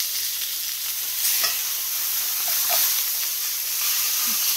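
Rib steak searing in a hot cast-iron skillet with garlic: a steady sizzle with a few sharp pops.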